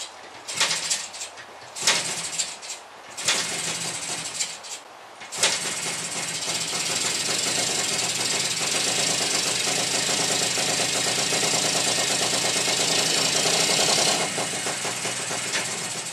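A Kawasaki F7 175cc two-stroke single-cylinder dirtbike engine being kick-started. It gives several short sputters, then about five seconds in it catches and runs steadily. It revs a little higher near the end, then falls away.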